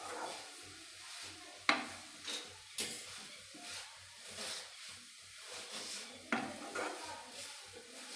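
A spoon stirring the grated amla and sugar mixture in a pan, scraping quietly. Three sharp knocks of the spoon against the pan come about a second in, a second later, and again near the end.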